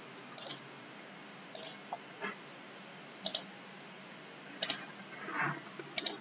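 Computer mouse clicking, five sharp clicks spread over a few seconds, several of them quick double clicks.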